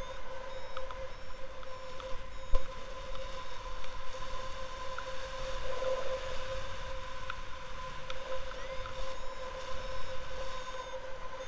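Wind buffeting the microphone of a paraglider pilot's helmet or harness camera in flight, with a steady high-pitched whine under it. A single sharp knock about two and a half seconds in.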